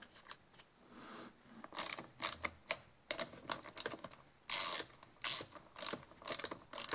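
Socket ratchet clicking in short, irregular strokes, starting about two seconds in, as the carburetor mounting nuts are run down snug.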